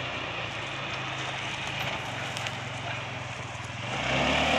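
ATV engine running at a low, steady speed, then picking up and getting louder near the end as the throttle opens.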